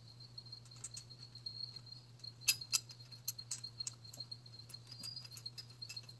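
Faint sharp clicks and light metal taps from suspension parts being handled, the two loudest close together about two and a half seconds in. Under them, a steady high trill and a low hum.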